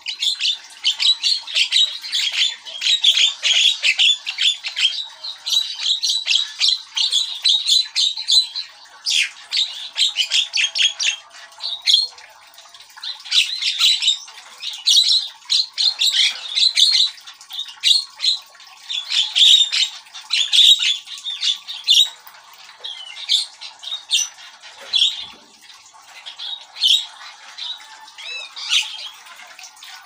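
Javan myna chattering vigorously in rapid runs of short, scratchy notes, phrase after phrase with brief pauses between.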